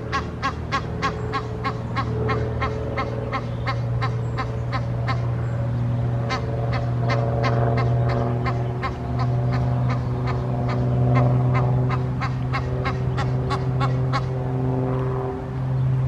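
Adult Egyptian goose calling in a rapid, steady series of short honks, about three a second, with a brief pause near the end, over a steady low hum.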